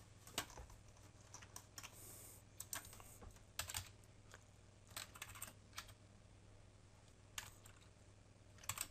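Faint keystrokes on a computer keyboard: scattered single taps and short runs of key presses.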